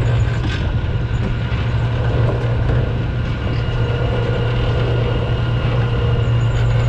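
A large fishing boat's engine running steadily: a loud, unbroken low drone with a few steady higher tones over it.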